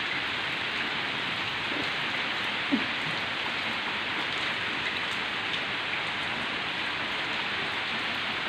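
Heavy rain of large drops falling on a wet concrete courtyard, a steady even hiss, with one small knock about three seconds in.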